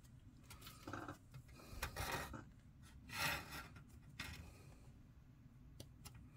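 Plastic model sprue being handled and turned in the fingers: a few faint plastic scrapes, with a couple of light clicks near the end.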